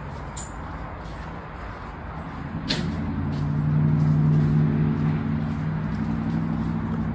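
A sharp click about three seconds in, then an engine's steady hum that swells over a second or two and holds.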